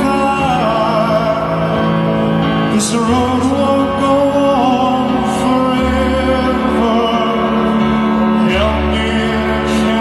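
Live rock band playing a slow song, with a man singing the melody over held bass notes that change every few seconds and occasional cymbal hits.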